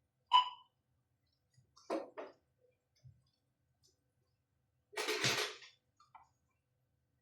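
Small hard parts and tools handled on a workbench: a sharp click with a short ring just after the start, two quick knocks about two seconds in, and a longer clatter about five seconds in.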